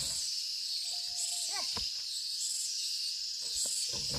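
Insects chirring steadily, with a higher layer that pulses about once a second. A short pitched call sounds about a second in, and a few light knocks come near the end.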